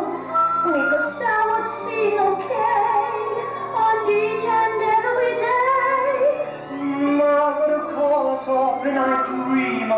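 A show tune sung by a woman's voice over instrumental backing.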